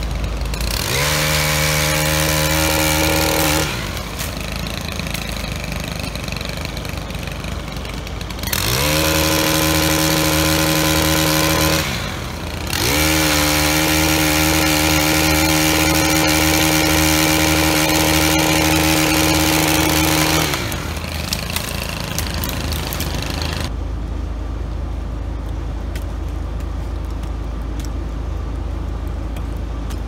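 Two-stroke saw opened up to full throttle three times to cut tree limbs: a short run, then two longer ones. Each run rises sharply in pitch as it starts and holds high and steady, with a lower steady engine rumble between and after the runs.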